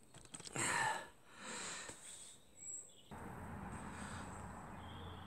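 Quiet outdoor background with a few soft, short scuffing noises in the first two seconds, then a steady low hiss of noise from about three seconds in.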